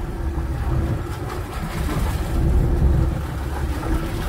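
Boat engine running, a steady low rumble with a faint hum, mixed with wind buffeting the microphone.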